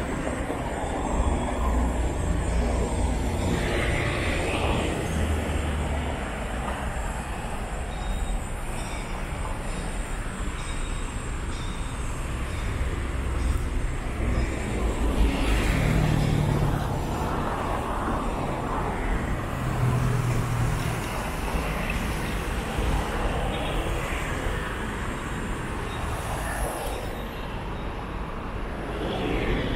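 Road traffic: a steady low rumble of engines and tyres, with several vehicles passing a few seconds apart, some with a low engine hum.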